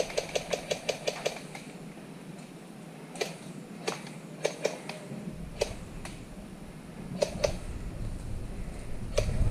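Airsoft guns firing: a quick, even string of sharp shots that stops a little over a second in, then scattered single shots. A low rumble rises in the second half.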